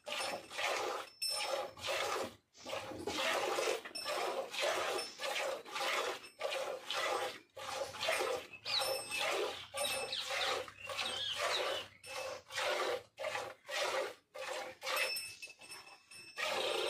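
A cow's tongue licking a young calf's coat: a steady run of rasping strokes, about two a second, that grow weaker near the end.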